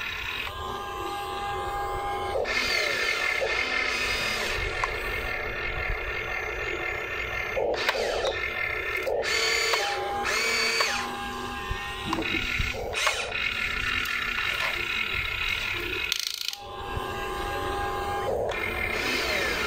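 Electric motors and gearboxes of a Huina RC excavator whining as the boom, arm and bucket move, the pitch shifting each time a different movement starts or stops.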